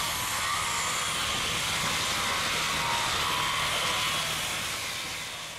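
Hand-held electric sander running steadily against a wooden boat hull, a continuous whirring hiss, fading out near the end.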